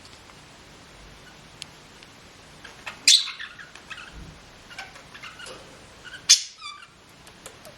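A sick pet bird squeaking. Two loud, shrill squeaks fall in pitch, about three seconds in and again about six seconds in, with soft clicks and small chirps between them.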